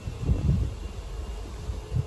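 Wind gusting on the microphone, with the faint steady drone of a distant approaching diesel locomotive underneath.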